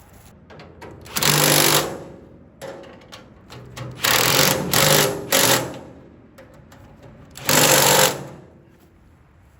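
Power impact driver tightening the chute bolts on a chipper shredder, in short rattling bursts: one, then three in quick succession, then one more.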